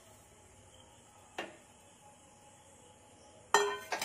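A steel spoon knocking against a small steel pot as fried fenugreek leaves are emptied into a glass bowl: a light clink about a second and a half in, then a loud ringing clang near the end.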